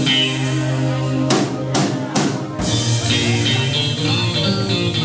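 Background music with drums and held melodic notes, and a few sharp drum hits between about one and a half and two seconds in.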